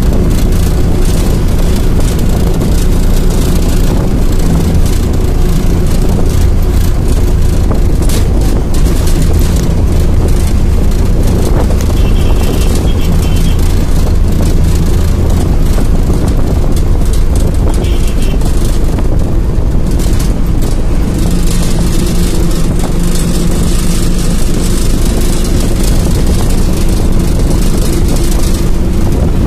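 Steady road and engine noise of a moving vehicle heard through an open side window, with wind buffeting the microphone.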